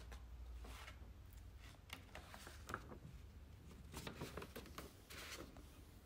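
Faint scissors snipping and scraping through packing tape on a small cardboard box, with scattered clicks of cardboard being handled and a brief rustle about five seconds in.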